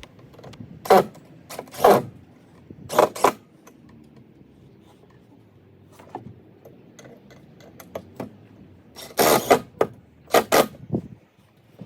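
Screws being driven through a batten into timber with a drill, in short bursts: three bursts in the first few seconds, then two more near the end.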